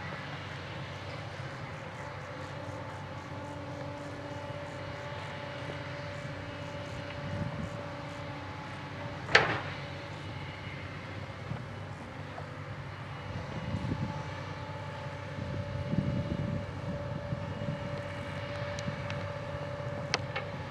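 Hyundai 210LC-9 crawler excavator running at work, its diesel engine giving a steady hum with a faint even whine. There is a single sharp metallic clank about nine seconds in, louder low rumbling stretches between about thirteen and seventeen seconds in as the bucket works the soil, and a couple of lighter knocks near the end.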